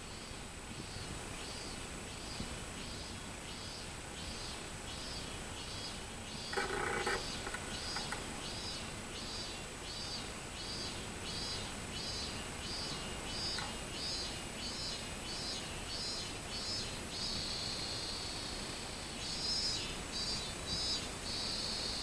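Minmin-zemi (robust cicada) singing, a string of repeated high "miin" pulses about two a second that grow louder and run together into long drawn-out notes near the end. A short lower-pitched call from another animal cuts in about a third of the way through.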